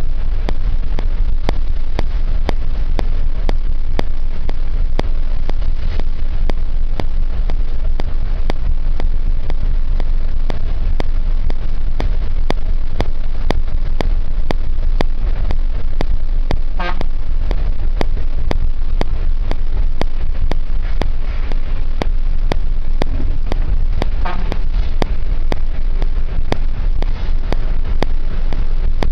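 Steady engine and road rumble from inside a moving vehicle, heavy in the low end. Two brief vehicle horn toots sound in the second half.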